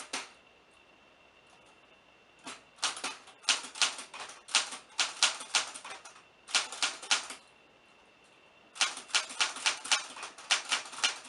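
Typewriter keys being struck in quick runs of sharp clacks, with short pauses between the runs; a single strike comes at the very start, followed by a couple of seconds of quiet.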